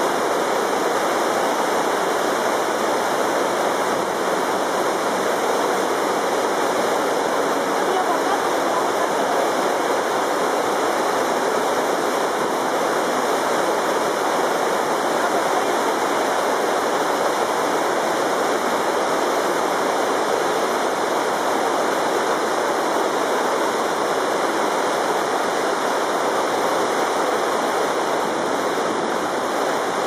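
Iguazu Falls: a broad waterfall plunging into the river below, a steady, unchanging rush of falling water.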